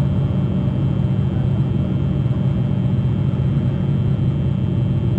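A steady low drone with a rumble under it, unchanging in pitch and level.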